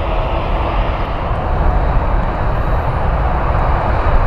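Jet airliner engines running at an airport: a steady rumble with a broad, even hiss of jet noise, swelling slightly after the first second.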